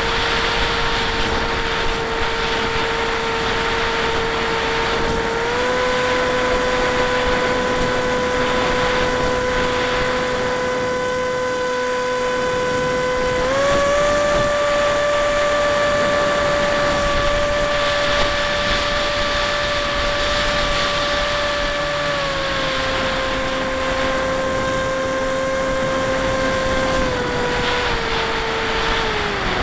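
Bixler 1 RC plane's electric motor and pusher propeller whining at a steady pitch over a rush of air. The pitch steps up about five seconds in and again about thirteen seconds in, then steps back down in stages later on as the throttle is eased.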